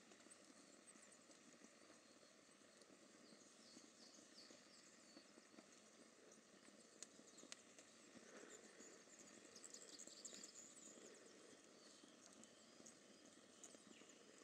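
Near silence with faint rustling and light ticking in dry leaf litter where a scrubwren is foraging, and a few faint high chirps.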